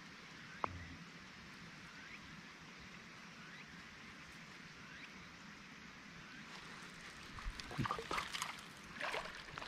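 Faint steady trickling and lapping of water around a small inflatable boat, with one sharp click just over half a second in; from about seven and a half seconds on, a run of irregular splashy knocks and clatter grows louder.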